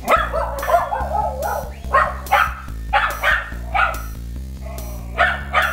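A dog barking again and again over background music: a first drawn-out, wavering call, then a string of short barks.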